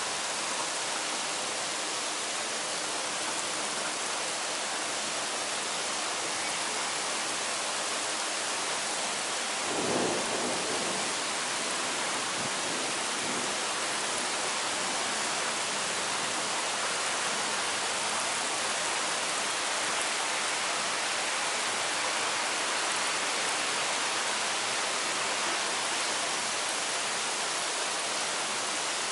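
Heavy rain falling steadily, a constant even hiss of a downpour on trees and paved ground, with a brief low swell about ten seconds in.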